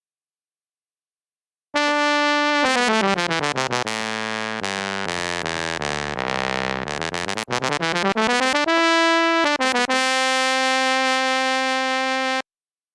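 A sampled brass instrument from an SF2 soundfont comes in about two seconds in with a held note. It plays a quick run of notes stepping down in pitch, climbs back up, and ends on long held notes that cut off abruptly near the end.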